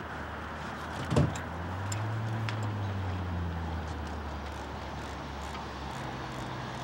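A low, steady motor hum over a background hiss, with one loud knock about a second in.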